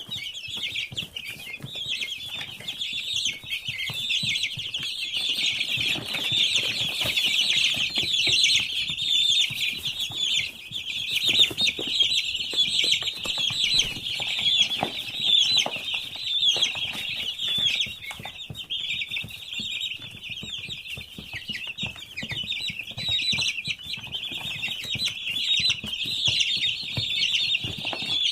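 A large flock of young chicks peeping continuously, many high calls overlapping into one constant chorus, with scattered short knocks underneath.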